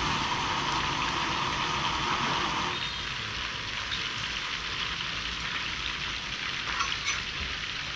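Food deep-frying in hot oil, sizzling steadily; the sizzle eases a little about three seconds in.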